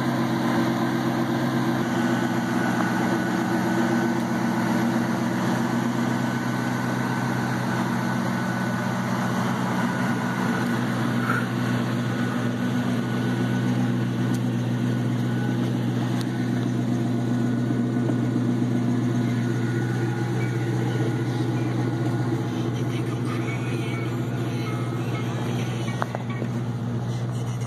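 1996 Jeep Grand Cherokee's engine idling steadily.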